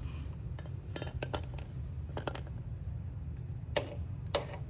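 Pliers clinking against metal in a handful of short clicks and taps while fishing for a dropped security screw: a few quick ones about a second in, two more after two seconds and two sharper ones near the end. A steady low rumble runs underneath.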